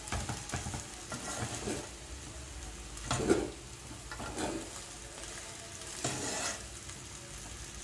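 Slotted spatula tossing noodles and fried rice in a non-stick kadhai, with a soft sizzle from the hot pan. A few separate scraping strokes, the loudest about three seconds in.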